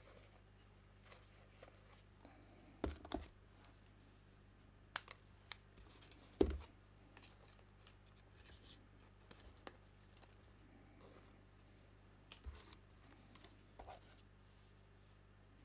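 Hands handling die-cut paper flowers and leaves and pressing them onto a card on a craft mat: soft scattered taps, clicks and paper rustles, with the loudest thump about six seconds in.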